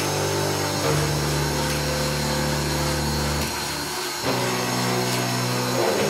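Rotary power-carving tool with a sanding drum running steadily on tupelo wood, its motor pitch stepping up and down a few times as the speed changes.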